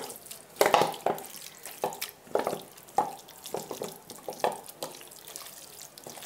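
Raw chicken pieces being mixed by hand in a wet marinade of ginger-garlic paste, soy sauce, tomato sauce and oil: irregular wet squelches about twice a second, loudest about a second in.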